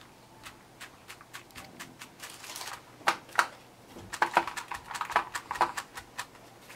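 Frozen chocolate squares being pushed out of a flexible ice-cube tray by pressing on the backs of its cells, with an irregular run of sharp clicks and taps as the pieces pop free and drop onto a plastic tray. The clicks are sparse at first and come thick and loud from about three seconds in.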